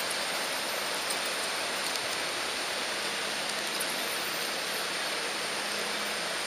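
Steady rushing hiss of an HO-scale Märklin model train rolling along the track, heard from the camera riding on it, with a faint low hum under it.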